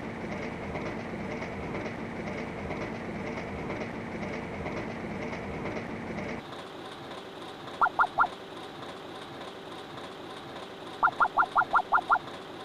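Train running along the track, a steady rumble that changes abruptly about six seconds in to a quieter, thinner running sound. Short rising chirps are heard over it: three in quick succession in the second half and a faster run of seven near the end.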